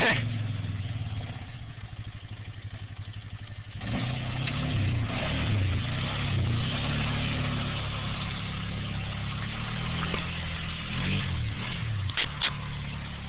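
Polaris 500 ATV engine running, softer at first, then louder from about four seconds in and revving up and down. A few sharp knocks near the end.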